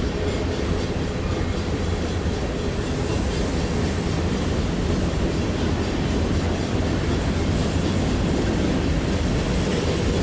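Freight train rolling past, a steady, loud rumble of the cars on the rails.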